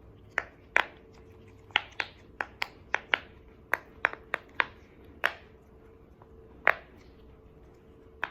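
Bubbles of a silicone pop-it fidget toy, shaped like a game controller, being pressed one after another. Each gives a sharp pop, irregularly spaced, more than a dozen in all and thinning out in the second half.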